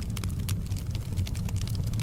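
Wood fire crackling in a fireplace: many quick, irregular pops and snaps over a steady low rumble.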